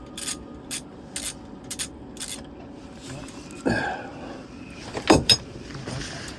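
Hand ratchet working an engine mount bolt, a burst of clicks on each stroke at about two strokes a second, which stops after a couple of seconds. Two sharp knocks follow a little after five seconds.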